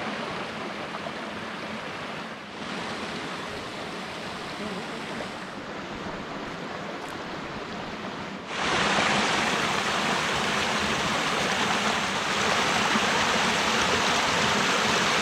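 Mountain river rushing over rocks, a steady noise of flowing water that suddenly gets louder and brighter a little past halfway through.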